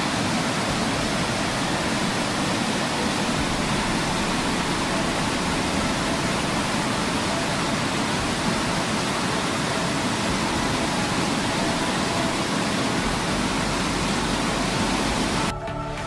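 Fast mountain river rushing over rocks and boulders: a steady, loud wash of white water that cuts off suddenly near the end.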